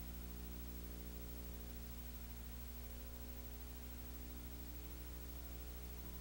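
Steady electrical mains hum with its overtones over even hiss, unchanging throughout: the empty sound track of a transferred silent home-movie film, with no game sound.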